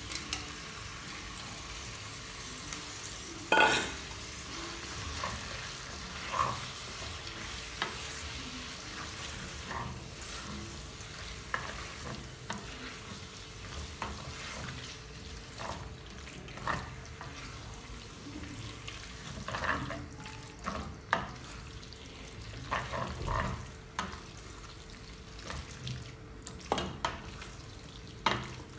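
Chicken gizzards frying in spiced oil in a pot, a steady sizzle, with a spoon scraping and clacking against the pot now and then as they are stirred; the sharpest knock comes about three and a half seconds in.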